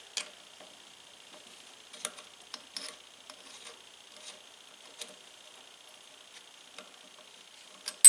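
A few faint, scattered metallic clicks and taps as an Allen wrench and loose parts are handled on the metal body of a Vevor benchtop wire stripper, while the stripper is being reset for smaller wire.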